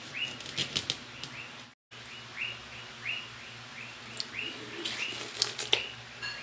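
Steady, high chirping, about three chirps a second, under crisp clicks and crunches from a knife cutting through watermelon on a wooden board and then bites into the watermelon. The audio drops out briefly about two seconds in.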